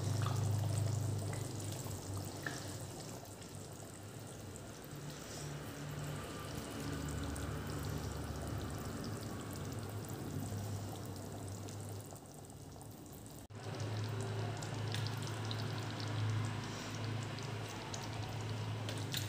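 Thick curry gravy simmering and bubbling in a pot on the stove, over a steady low hum.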